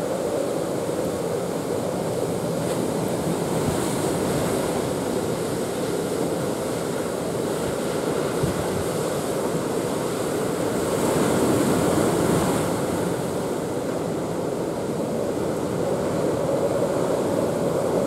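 Typhoon-driven rough sea: waves breaking and surf churning with wind, a steady rushing roar that swells briefly about two-thirds of the way through.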